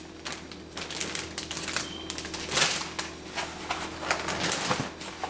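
Irregular light clicks and crinkles from a plastic bag being handled on the kitchen counter.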